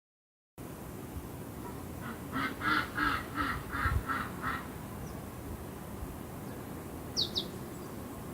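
A bird calling: a run of about seven quick, evenly spaced calls, about three a second, then two short high chirps near the end, over steady background noise. The sound cuts in abruptly about half a second in.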